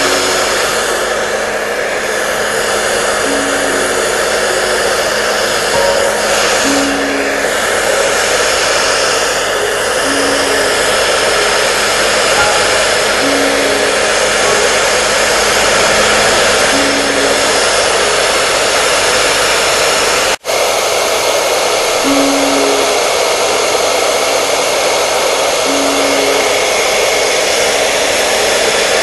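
Hair dryer running steadily at a constant blowing noise, with a split-second dropout about two-thirds of the way through.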